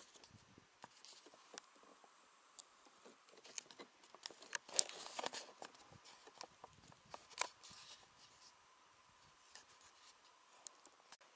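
Faint scattered crackles and small clicks of clothing and handling rustle close to the microphone, louder for a moment about four to five seconds in and again a little after seven seconds.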